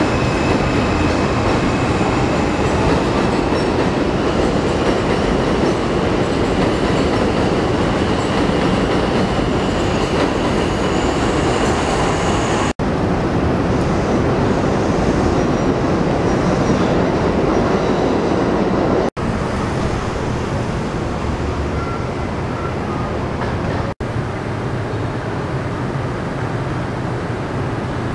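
Elevated subway train running on the steel el structure overhead: a loud, continuous rumble with a thin high wheel squeal in the first half. It eases somewhat about two-thirds of the way through.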